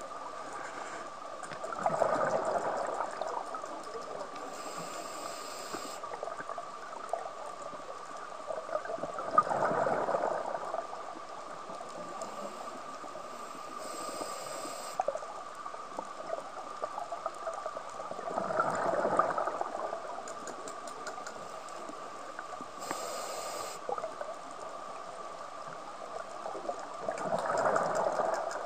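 Scuba diver breathing through a regulator underwater: four rushes of exhaled bubbles about every eight to nine seconds, each with a short hiss of inhalation between it and the next, over a steady faint hum.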